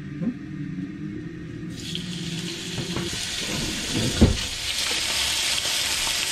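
Pieces of chicken sizzling in hot oil in a frying pan, the hiss starting about two seconds in as the meat goes in. A single thump comes a little after four seconds, the loudest sound.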